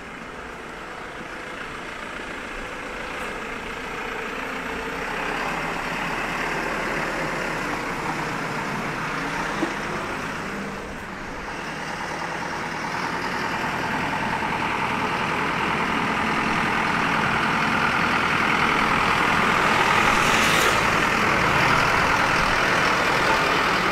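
Street traffic noise from motor vehicles, a heavy truck or bus among them, growing steadily louder, with a short hiss about twenty seconds in.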